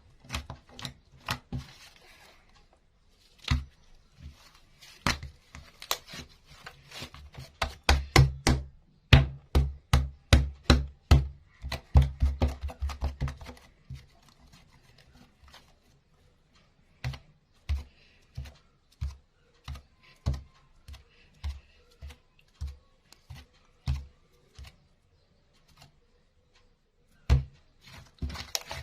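Handling of soap and clay slime: a series of sharp clicks and soft thumps, coming quickly in a long run in the middle and spaced out toward the end.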